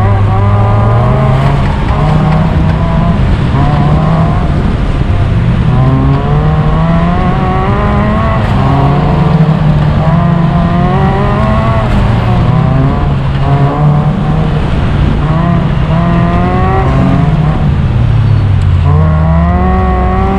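Race car engine revving up and down again and again as the car is driven hard through an autocross course, the pitch climbing and dropping every second or two.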